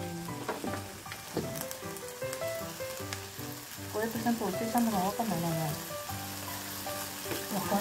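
Meat and green peppers sizzling in a frying pan, with background music playing over it.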